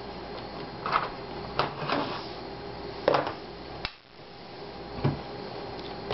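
Plastic clicks and knocks of an Asus X54C laptop being handled on a wooden desk: the battery released and pulled out, then the machine turned over and its lid opened. About five separate clicks and knocks, the loudest a little after three seconds in.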